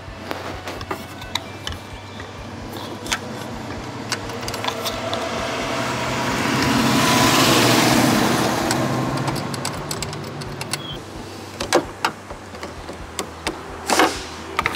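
Metal clicks and taps of a 10 mm wrench working the nut on a car battery's negative terminal clamp, scattered throughout and sharper near the end. A passing vehicle swells up and fades away in the middle and is the loudest sound.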